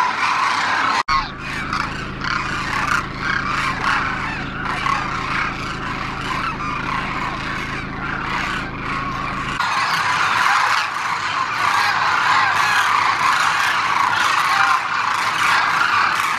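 A large flock of demoiselle cranes calling together: a dense, continuous chorus of many overlapping calls.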